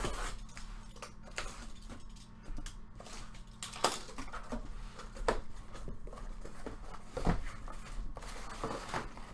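Irregular small clicks, taps and rustles of hands handling trading card boxes, packs and cards, a few sharper knocks among them, over a low steady electrical hum.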